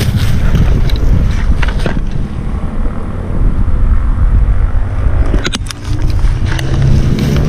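Wind buffeting the microphone, a loud, gusting low rumble, with a few sharp clicks scattered through it.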